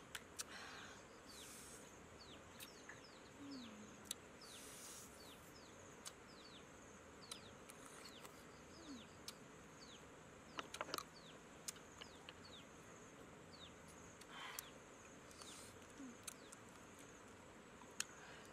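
Birds giving short falling chirps over and over, over a faint steady insect buzz. A few sharp cracks and clicks cut through, the loudest a quick cluster about eleven seconds in and another near the end: crab shells being broken apart by hand.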